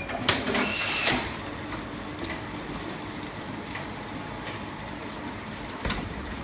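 Automatic side strapping machine at the end of a strapping cycle: a sharp click a moment in and about a second of louder machine noise, then the machine and its powered roller conveyor running with a steady low hum and a few light clicks as the strapped carton rolls out.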